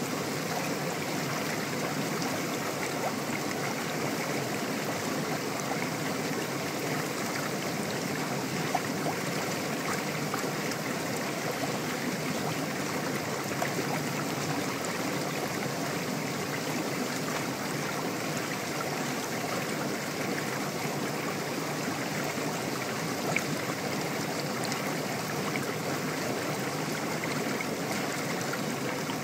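Hot tub jets churning the water into froth, a steady bubbling that does not let up.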